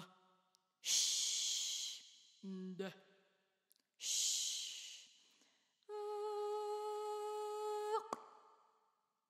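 A woman's unaccompanied experimental vocalising: two breathy exhales of about a second each, with a short low note between them, then a steady held note of about two seconds that flicks upward as it ends.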